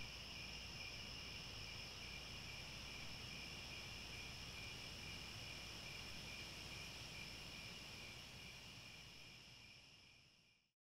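Faint night chorus of insects, a steady high-pitched trilling at several pitches at once, fading out in the last couple of seconds.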